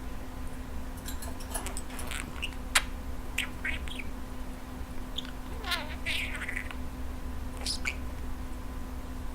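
Budgerigar chattering in a string of short chirps and warbles, with a single sharp click a little under three seconds in, over a steady low hum.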